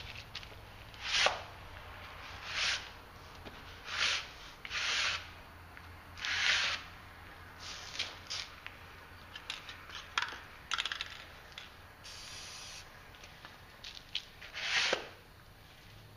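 Aerosol spray-paint can sprayed in short hissing bursts, about eight of them at uneven intervals, with a few small clicks and knocks of handling in between.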